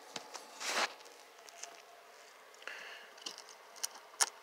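Handling of a plastic tap and die set case and its paper owner's manual in a plastic bag: a brief rustling swish about a second in, then a softer rustle and a few light clicks and taps.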